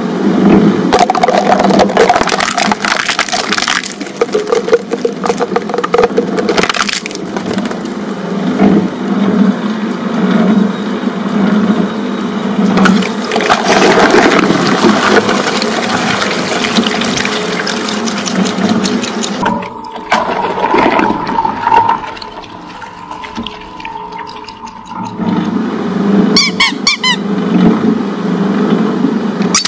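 Twin-shaft shredder's steel cutters grinding and crushing a run of objects with loud crunching and cracking: Play-Doh tubs, then a soda can set in jelly that bursts with splashing liquid. About 20 s in it runs lighter with a steady whine, and a few high squeaks come near the end.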